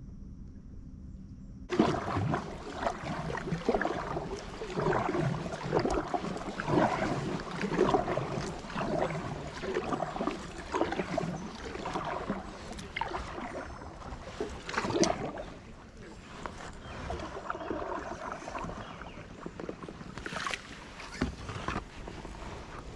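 Kayak paddling: irregular paddle splashes and knocks, starting about two seconds in.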